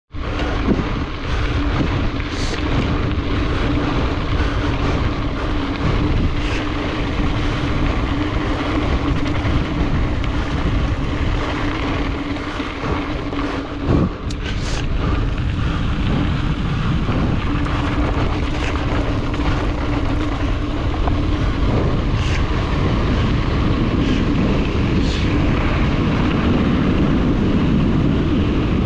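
Wind rushing over the microphone and the rolling noise of a gravel bike being ridden, with a steady hum, scattered clicks and one sharp knock about halfway.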